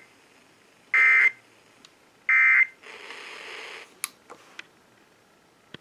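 Emergency Alert System SAME end-of-message data bursts: two short, shrill, warbling digital chirps a little over a second apart, closing the test broadcast. After them comes about a second of hiss, then a few sharp clicks.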